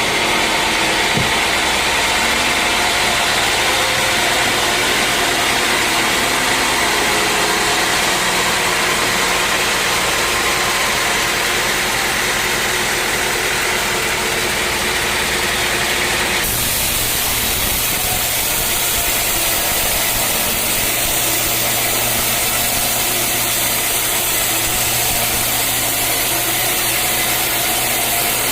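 Sawmill machinery running steadily, a dense engine-like hum with several held tones. Its sound changes abruptly a little past halfway through.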